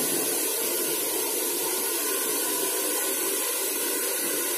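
Handheld electric hair dryer running steadily on its cool setting, blowing air onto wet hair with an even whooshing hiss.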